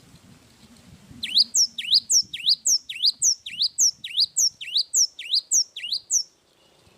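Gelatik wingko songbird singing a fast, even run of about sixteen sharp, high, whistled notes, roughly three a second, that begins about a second in and stops abruptly after about six seconds.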